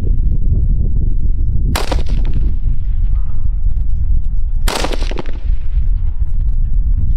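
Two 5.56 rifle shots from an AR-15, firing M855 green-tip rounds, about three seconds apart, each followed by a short fading echo. A steady low rumble runs underneath.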